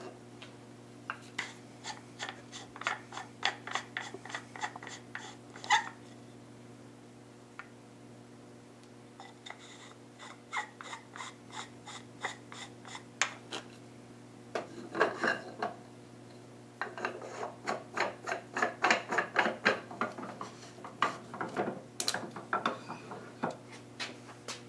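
A wooden end-grain knob being twisted on and off the threaded wooden end of a vise handle: wood threads rub and click in several runs of rapid scraping, with short pauses between them. A steady low hum runs underneath.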